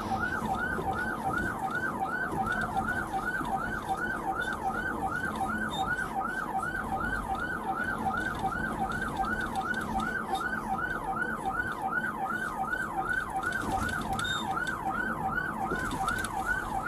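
Police siren on the fast yelp setting, its pitch sweeping up and down evenly nearly three times a second, over a steady low hum.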